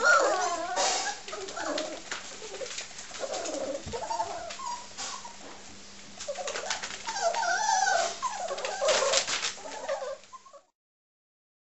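A litter of 40-day-old English springer spaniel puppies whining and moaning, with many wavering high cries overlapping, mixed with scattered clicks and scratches. It all stops abruptly near the end.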